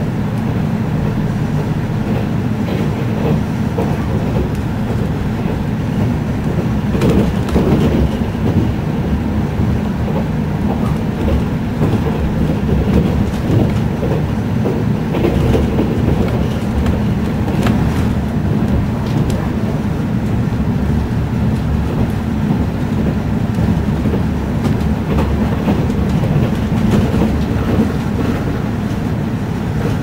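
Running noise heard inside a 485-series electric express train car at speed: a steady low rumble of wheels on rail. Sharp clicks come through now and then.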